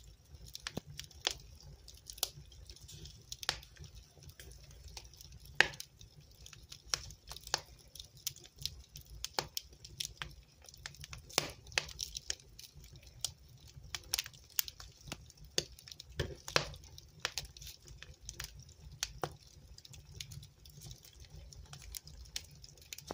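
Wood fire burning in a fireplace, crackling with irregular sharp pops over a low steady rumble of the flames. One pop about five and a half seconds in is louder than the rest.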